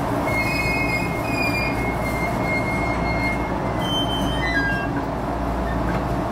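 A train running, with steady rumbling noise and a high squealing tone over it for the first few seconds. Near the end a few shorter high tones step down in pitch.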